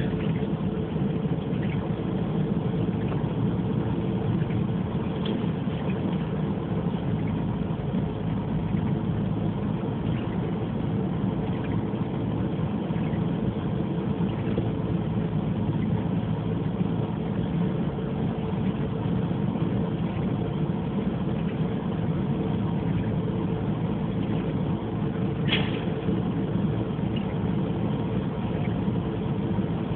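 Car running steadily at low speed, engine hum and road noise heard from inside the cabin, with one sharp click about 25 seconds in.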